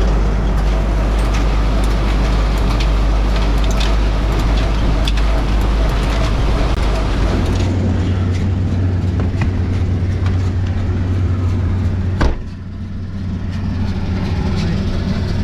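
Ursus 4512 diesel tractor running steadily under work, with frequent small clicks and rattles over the engine drone. About halfway through, the drone shifts to a lower, steadier hum. A single sharp click about 12 seconds in is followed by a brief dip in loudness.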